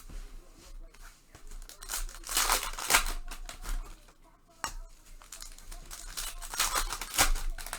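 Trading card pack wrappers being torn open and crinkled, in two stretches with a sharp click between them.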